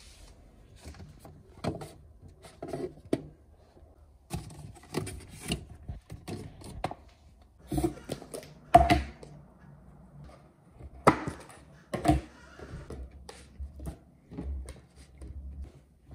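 Household handling noises: scattered light knocks, clunks and plastic rustles as food packaging and items are picked up and set down, with a few sharper knocks a little past the middle.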